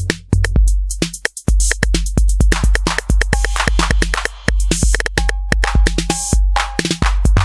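Roland TR-8S drum machine playing a factory preset beat: deep bass-drum hits under fast hi-hat and percussion clicks. The beat thins out briefly about a second in, and a short pitched tone sounds over the beat in the second half.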